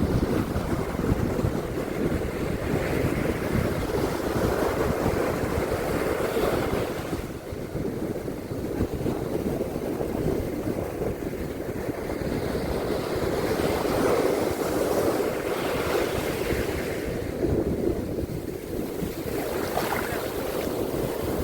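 Ocean waves washing onto a beach, swelling and ebbing every several seconds, with wind buffeting the microphone.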